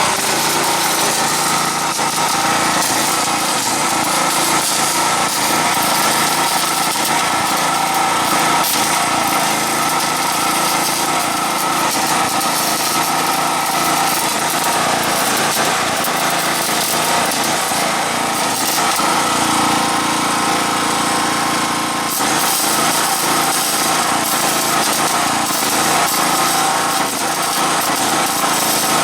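Steady, loud machine running noise, like a small engine or power tool, with a fine crackle through it.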